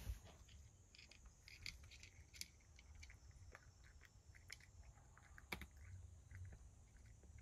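A cat crunching dry kibble from a dish: faint, irregular crunches and clicks, with a sharper click about five and a half seconds in.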